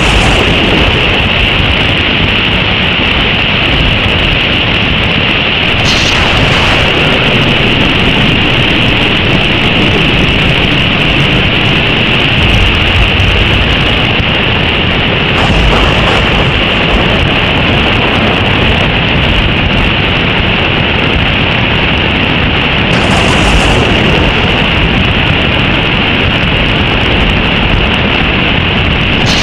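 Swollen floodwater rushing in a flooding river, a loud steady rush of water that does not let up.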